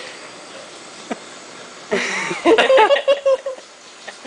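A high-pitched voice starting about two seconds in, with a few quick rising and falling sounds and then one held note, after a low background with a small click.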